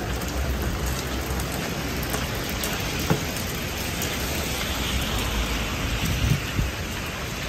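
Heavy rain falling on a city street, a steady hiss with a low rumble underneath and a single sharp tick about three seconds in.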